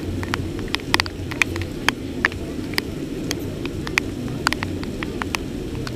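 Steady rainfall, with irregular sharp taps of raindrops landing close to the microphone, several a second.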